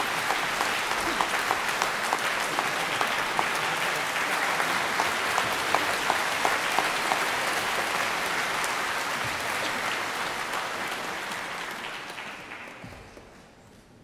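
Large audience applauding steadily, a dense mass of clapping that dies away over the last two seconds.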